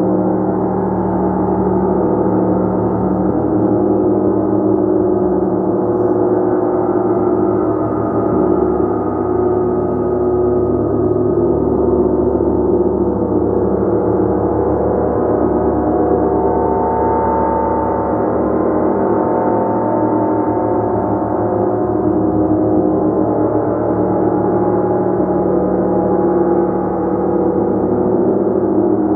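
Gong played continuously in a sound-healing practice: a dense, steady wash of many overlapping held tones, mostly low and middle in pitch, with no pauses.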